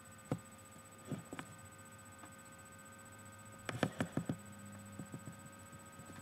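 Scattered soft taps and knocks over a faint steady room hum, the loudest a quick run of several just past the middle.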